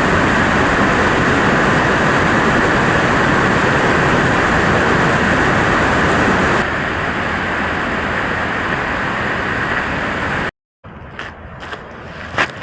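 Steady road and tyre noise of a car driving, stepping down in level about halfway through, then cutting off abruptly. Faint crunching footsteps begin near the end.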